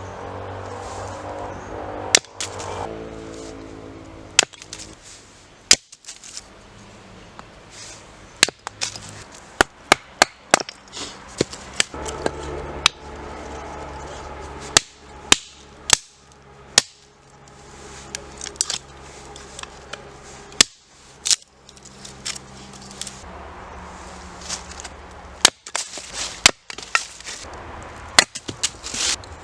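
Hatchet striking and splitting firewood: irregular sharp knocks, some in quick pairs or clusters, over soft background music with held chords.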